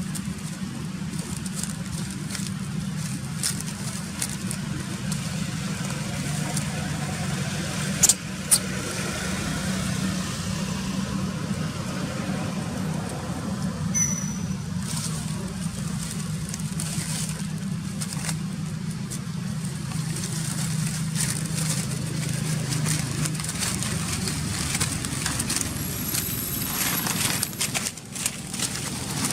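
A steady low engine hum, with scattered sharp clicks and crackles over it.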